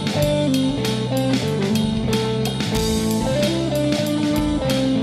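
Background song with guitar and drum kit, a steady beat under stepping guitar notes, with no singing.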